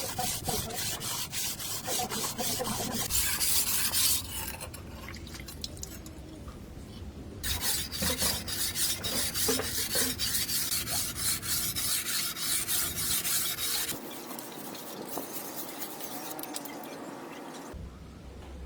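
An old sword's steel blade being scrubbed by hand with an abrasive: quick, repeated rasping strokes in two runs, with a pause of about three seconds after the first. A softer, smoother rubbing follows near the end.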